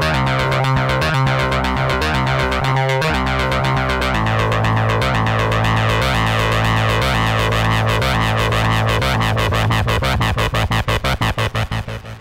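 Cherry Audio Octave Cat software synthesizer, an emulation of the 1976 Octave CAT duophonic analog synth, playing a sequenced pattern of rapidly repeating notes over a sustained low bass note. The bass note changes about four seconds in, and near the end the sound breaks into pulses and fades out.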